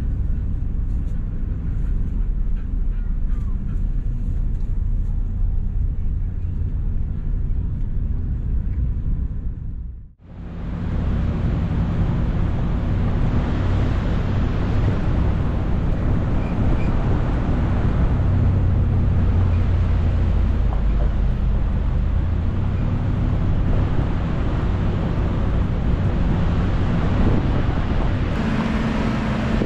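Truck driving, with steady engine and road noise. About ten seconds in it cuts out briefly, then returns with more hiss as the truck runs on a gravel road.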